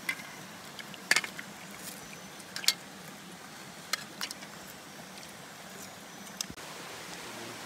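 Metal spoons and a ladle clinking a few times against metal soup pots and plates, over the steady rush of a stream.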